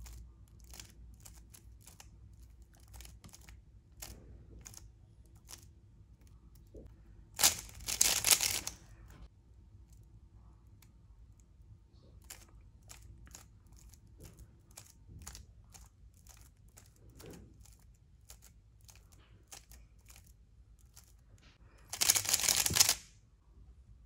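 3x3 speed cube being turned by hand: scattered single clicks of slow layer turns, with two loud bursts of rapid clattering turns about a second long, one about a third of the way in and one near the end, as last-layer permutation algorithms are executed at speed.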